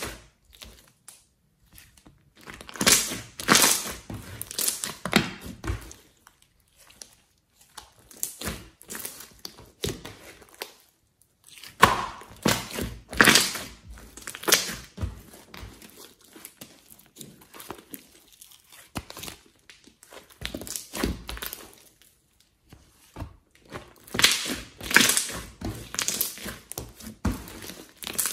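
Hands squeezing, folding and pressing a large mass of glossy slime, giving crackling, popping handling sounds in irregular bunches a few seconds apart, with short quieter gaps between.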